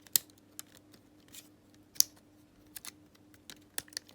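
Irregular sharp plastic clicks and taps from small parts of an opened Xbox One controller being handled, the loudest about a fifth of a second in and again about two seconds in.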